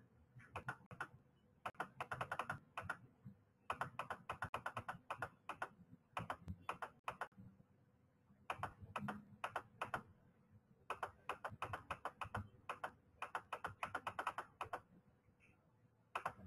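Faint typing on a computer keyboard: quick runs of keystrokes broken by short pauses.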